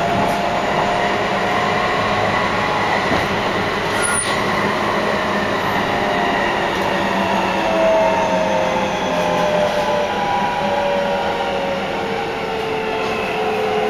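Keihan 3000 series electric train heard from inside the car. The Toyo Denki IGBT-VVVF inverter gives a steady whine, then several tones fall slowly in pitch from about halfway through as the train slows on its braking run into Kayashima. Wheel-on-rail rumble runs underneath, with one sharp click about four seconds in.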